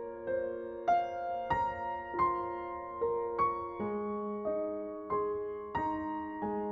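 Background music: a piano playing a slow melody, a new note or chord struck roughly every half second to a second and left to ring.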